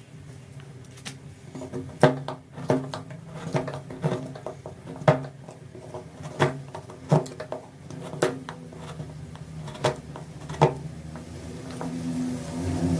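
Hand tools working wood: a series of sharp, irregular clicks and knocks, about one a second, over a low steady hum that grows louder near the end.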